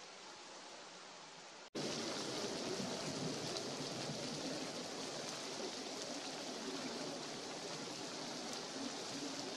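Steady outdoor rushing noise, fainter at first, then louder and fuller after an abrupt break about two seconds in.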